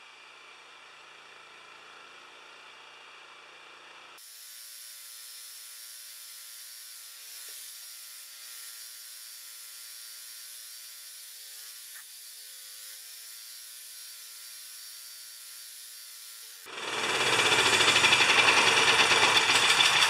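Honda GX390 generator engine running steadily in the background; about three-quarters of the way through, a circular saw plugged into the generator as a test load starts and runs loud, drowning out the engine.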